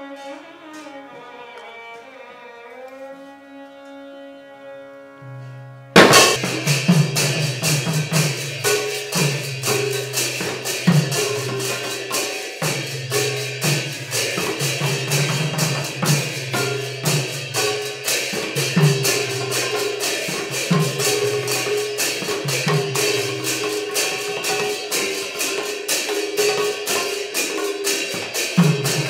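A violin plays a slow, sliding melody alone. About six seconds in, khol drums come in suddenly and loudly in a fast repeating rhythm, with deep drum strokes under rapid metallic cymbal strikes, as a Sattriya devotional percussion ensemble.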